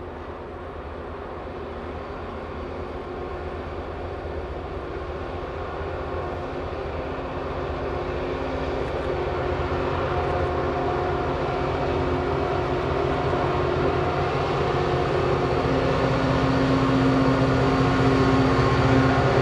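Several diesel-electric locomotives in multiple working hard as they haul a freight train up a steep grade, their engines' steady drone growing louder as they approach. An engine tone stands out more strongly in the last few seconds.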